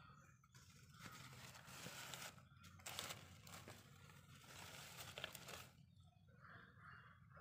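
Faint rustling and crinkling of paadathaali vine leaves and stems being pulled and picked by hand, with scattered small crackles.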